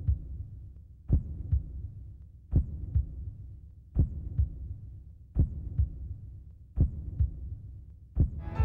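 Heartbeat-like low double thumps in the soundtrack: a strong beat followed by a softer one, repeating about every one and a half seconds over a low hum. The music stops just before them and piano returns at the very end.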